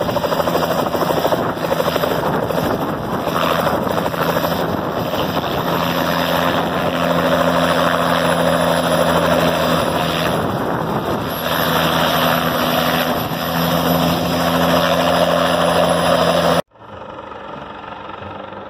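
Two-bladed light helicopter running close by as it hovers just above the ground, a steady engine note under the beat of the rotor. Near the end the sound cuts off abruptly to a much fainter helicopter flying far overhead.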